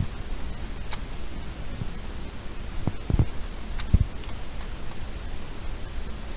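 A few sharp plastic clicks and rustles of a 3x3 Rubik's Cube being handled and turned, over a steady background hiss. The clicks come singly and in pairs, the loudest about three and four seconds in.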